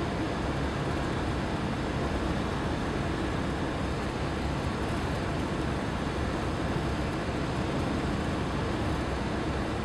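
Cessna 172SP's four-cylinder Lycoming engine and propeller running steadily on final approach to landing, heard from inside the cockpit as an even drone with a rushing hiss over it.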